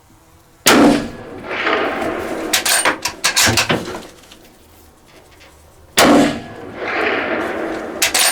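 Two rifle shots at a whitetail buck, about five seconds apart, each a sharp loud crack followed by a rolling echo that dies away over a couple of seconds. A few sharp metallic clicks come between the shots.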